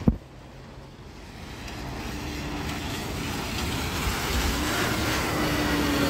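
A single sharp click right at the start, then an articulated city bus driving past on the wet road. Its engine hum and tyre noise grow steadily louder over several seconds.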